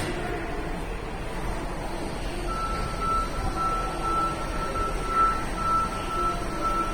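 Electronic warning beeper in a railway station, a single high tone pulsing about two to three times a second, starting about two and a half seconds in, over steady station hubbub.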